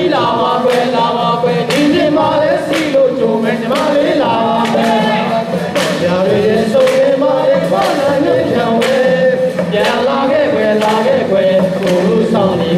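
A group of voices singing a song together in chorus over music with a regular beat.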